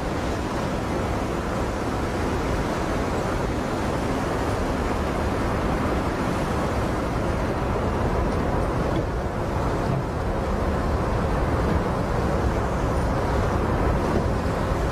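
Pilot boat under way at sea, its engine running steadily with water rushing past the hull.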